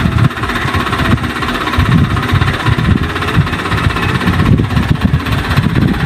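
An engine idling steadily, with an uneven low pulsing.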